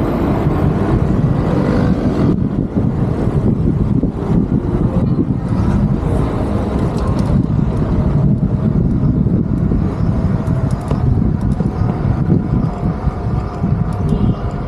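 Road traffic on a city street: cars running past in a dense, continuous low rumble.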